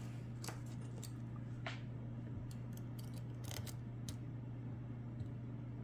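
Faint metallic clicks of a hook pick working the pins inside a Lockwood Twin brass padlock: a handful of scattered ticks over a steady low hum.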